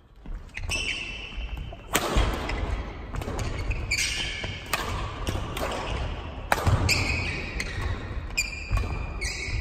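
Badminton doubles rally: rackets smacking a shuttlecock back and forth every second or so, with sneakers squeaking briefly and feet thudding on a wooden gym floor, the hits ringing in a large hall.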